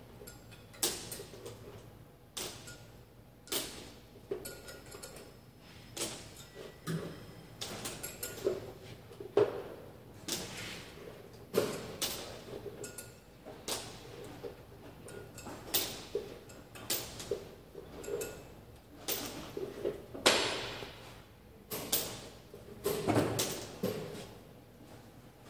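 Steel clamp parts knocking and clinking together as they are handled and fitted by hand on a workbench: irregular sharp knocks, roughly one a second, some with a short metallic ring.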